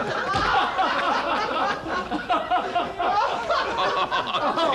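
Several people laughing at once, their laughs overlapping without a break.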